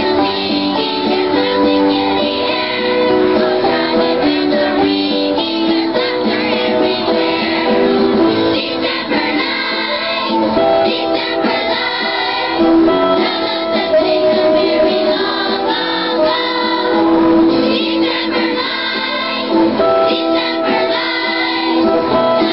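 Children's choir singing a Christmas song in unison over an instrumental accompaniment.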